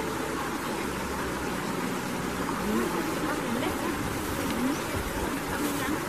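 Outdoor crowd ambience: many people walking and talking indistinctly, no single voice standing out, over a steady rushing background noise.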